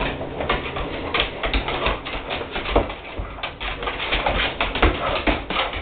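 Excited pit bull scrabbling about on a hardwood floor, its claws clicking in quick, irregular taps.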